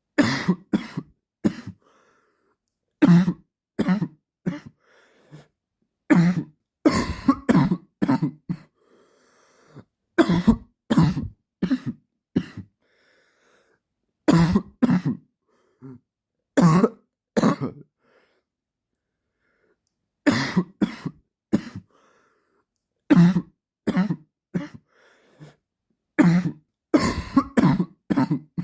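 A man's dry cough, coming in repeated fits of several short coughs in quick succession, with brief silent pauses between fits.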